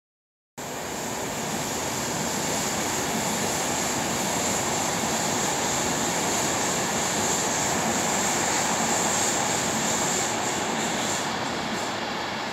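Train running on nearby track, out of sight: a steady rushing with a high hiss over it, which cuts in suddenly about half a second in and eases a little near the end.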